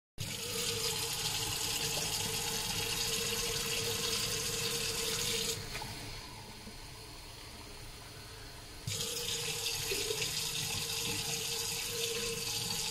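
Steady rush of running water. A little before halfway the hiss thins to a duller sound for about three seconds, then comes back as before.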